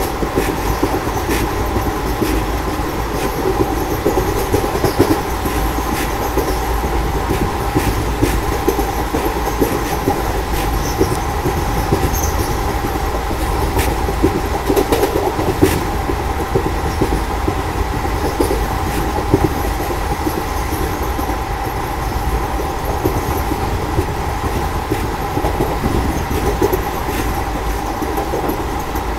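Indian Railways passenger train running at speed, heard from the open doorway of a coach: a steady rumble of wheels on rail with a high tone running through it, and scattered sharp clicks from the wheels.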